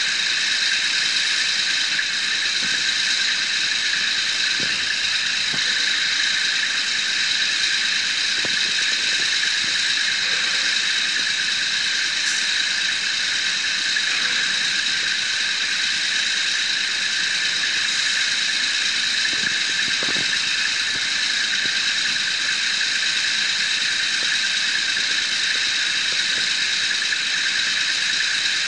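Heavy gin pole trucks running their winches to pull a drilling-rig draworks up a ramp: a steady high-pitched whine over a loud hiss, with a few faint knocks.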